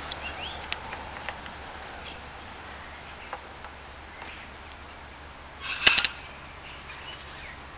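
Metal parts of a Daikin swing compressor clicking and clinking as they are handled, the one-piece swing rotor being lifted out of its cylinder block. There are a few light clicks in the first second or so and a louder quick cluster of clicks about six seconds in, over a low steady hum.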